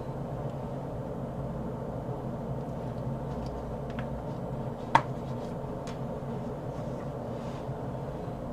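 Steady low background hum, with one sharp click about five seconds in and a few faint ticks around it.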